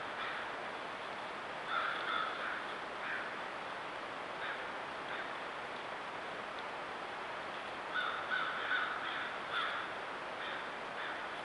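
Short bird calls in clusters, a few about two seconds in and a run of several from about eight to ten seconds, over the steady hiss of a trail camera's microphone.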